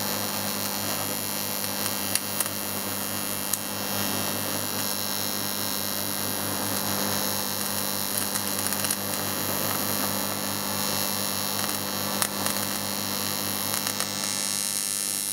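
TIG welding arc burning with a steady electrical hum and hiss, a few sharp crackles here and there, cutting off abruptly at the end as the arc is stopped.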